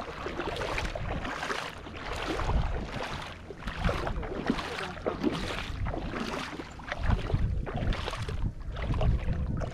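Legs wading through shallow water, a splashing swish with each step, about two steps a second, over a low wind rumble on the microphone.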